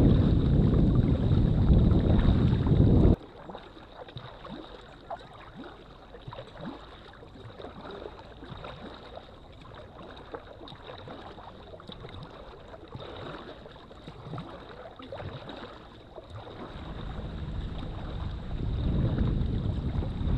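Wind buffeting the microphone, cutting off abruptly about three seconds in. Then quiet water: small splashes and drips from kayak paddle strokes, with wind noise building again near the end.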